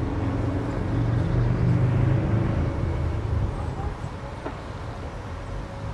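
Road traffic: a motor vehicle's low engine drone that swells about a second or two in, then fades away past the halfway point.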